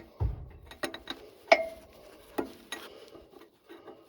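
Metal tool clinking and knocking against the hydraulic line fittings of a mini excavator while they are checked for tightness. There are scattered clicks and knocks, a dull bump just after the start, and one ringing metal clink about a second and a half in.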